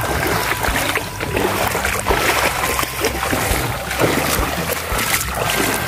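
Wind buffeting the microphone over small waves lapping and splashing in the shallows along a rocky shore.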